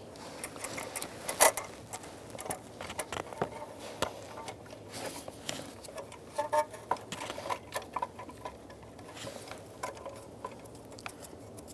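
Scattered light clicks and knocks of metal parts being handled as a new water pump is fitted against the engine block and its bolts are started by hand, with one sharper knock about a second and a half in.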